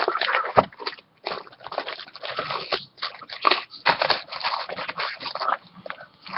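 Crinkling and tearing of a plastic wrapper as a trading-card hobby box and its packs are opened, a dense run of crackles with short pauses.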